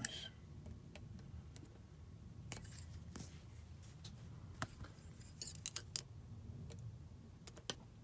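Faint, irregular metallic clicks and scrapes of a hook pick working the discs of a Chubb AVA disc-detainer cam lock under a tension tool, more of them in the second half.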